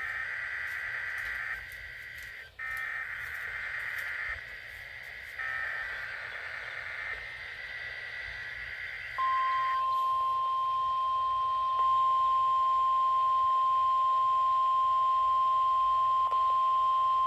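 NOAA Weather Radio Required Weekly Test signal. For the first nine seconds or so there is a string of shrill, warbling SAME digital header bursts that start and stop. Then a steady single-pitch 1050 Hz warning alarm tone comes on and holds, getting louder about twelve seconds in.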